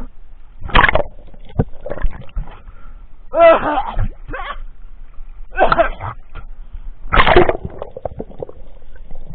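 Choppy sea water splashing and gurgling around a camera riding at the surface, in loud irregular bursts about every two seconds as waves wash over it.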